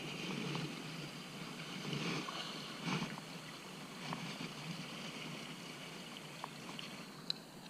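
Steady outdoor noise of lapping water and wind, with a few faint clicks and one sharper click near the end.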